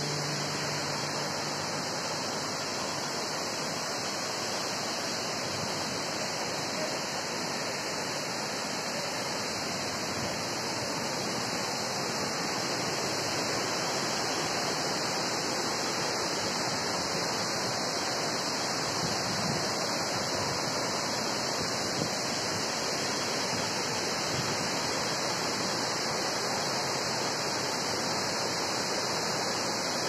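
Shaki waterfall, a wide cascade pouring over a rock face: a steady rush of falling water.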